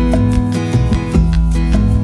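Background music led by a plucked acoustic guitar over a steady bass line.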